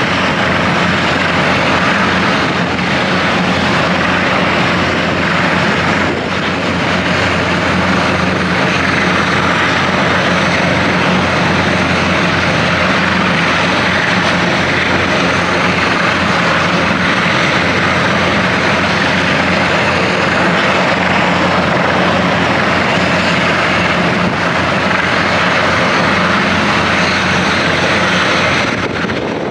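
Airbus Super Puma-type twin-turbine helicopter running on the ground with its rotors turning, a loud, steady engine and rotor noise that holds level throughout.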